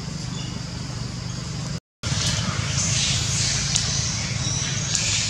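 Steady outdoor background noise: a low rumble with a high hiss over it. It cuts out for a moment about two seconds in, then returns a little louder, with the hiss swelling and fading.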